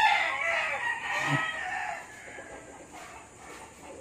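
A rooster crowing: one long call that fades out about two seconds in.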